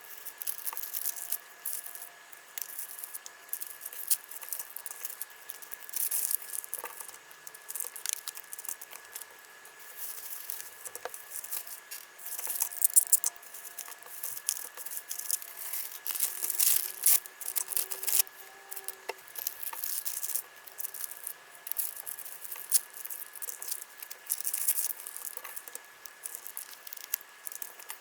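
Small accessories and plastic packaging handled close up on a table: a run of light clicks, taps, small rattles and crinkles, with a faint steady high tone behind.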